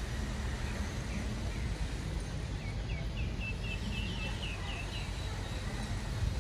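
A bird calling a quick run of about ten short, high chirps, starting a couple of seconds in and stopping about halfway through, over a steady low rumble.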